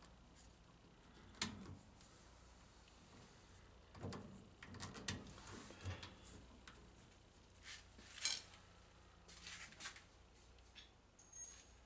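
Faint, scattered clicks, knocks and scrapes of metal parts being handled and fitted together during reassembly of a can vending machine's rotor and motor assembly. The two sharpest clicks come about a second in and again about eight seconds in.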